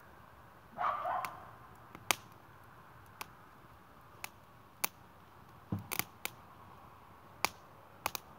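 Wood fire crackling: sharp, irregular pops and snaps from burning logs over a low steady background, with a brief, louder mid-pitched sound about a second in.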